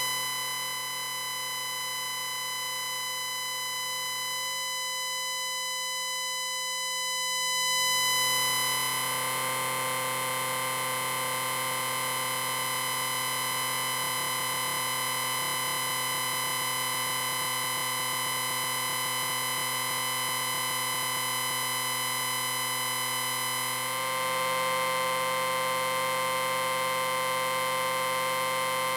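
An electric ringer sounding one long continuous ring: a steady buzzing tone with many overtones, growing a little louder about eight seconds in and again near the end.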